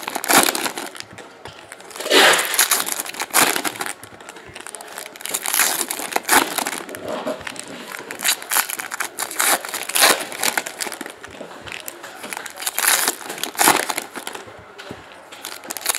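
Foil wrappers of Panini Prizm football card packs crinkling and tearing as they are ripped open by hand, in irregular bursts a second or so apart.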